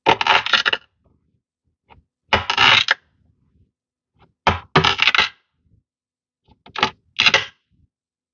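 Blade slicing through packed kinetic sand in short grainy bursts, about one cut every two seconds, with silence between the cuts.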